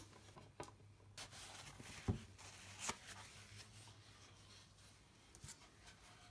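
Faint close-up handling sounds of small hand work on an oak drawer: light clicks and rubbing from a screwdriver tightening the screw that holds a brass knob, with a single dull knock about two seconds in.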